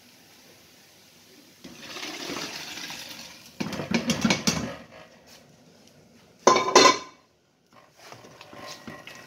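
Chicken pieces and their liquid tipped into a pan, a wet pouring and splashing that grows louder about four seconds in. Near seven seconds there is a short metallic clatter of cookware.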